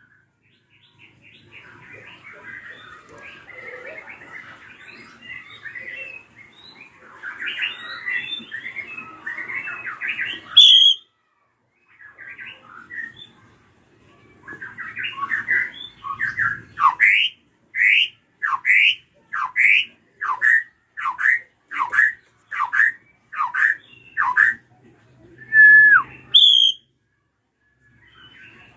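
Drongo (srigunting krantil) calling: a busy run of scratchy chattering notes, then about a dozen loud down-slurred shrieks at about two a second, ending in a held whistle that drops at the end.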